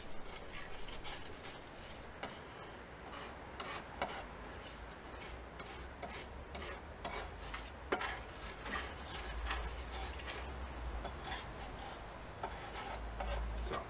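A kitchen knife scraping and tapping on a wooden cutting board as garlic is crushed and worked into a paste, in irregular scrapes and short taps.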